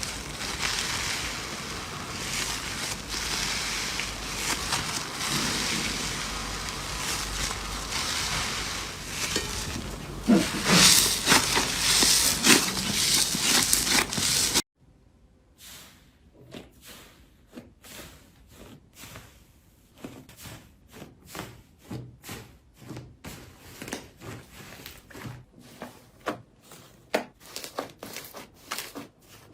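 Slime being squeezed and worked by hand, a dense wet crackling that grows louder about ten seconds in. About halfway through, it cuts abruptly to a much quieter stretch of separate small clicks and pops.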